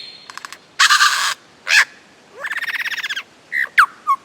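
Lyrebird singing its mimicry song: a quick series of clicks, a short rasping burst, a fast rattling trill about two seconds in, and whistled swoops rising and falling in pitch near the end.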